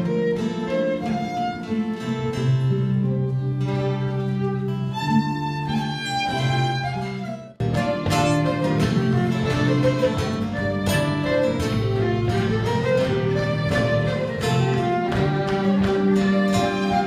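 Live Celtic fiddle tune played on fiddle with acoustic guitar strumming the accompaniment. The sound drops out for an instant about seven seconds in, then the tune carries straight on.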